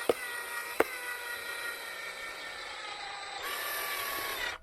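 Power drill running with a steady whine that slowly falls in pitch, with two sharp knocks in the first second; it stops abruptly at the end.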